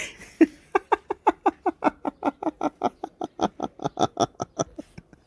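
A man laughing: a fast, even run of short voiced "ha" pulses, about five a second, fading near the end.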